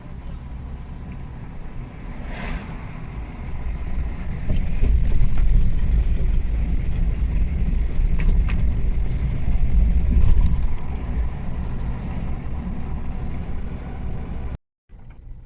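Low rumble of a moving vehicle's engine with wind buffeting the microphone, swelling louder through the middle and easing off, then cutting out briefly near the end.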